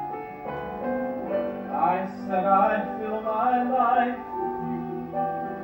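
Live musical-theatre ballad: an instrumental accompaniment holds sustained chords. About two seconds in, a singer's voice comes in over it on long notes with vibrato, then drops back near the end.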